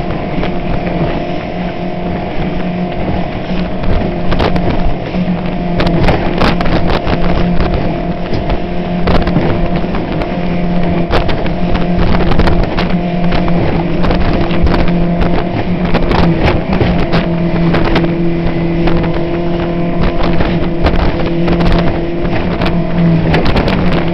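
A motorboat's engine runs steadily under way as the boat crosses choppy water. Irregular knocks and splashes come from the hull slamming into the waves, with rushing water and spray.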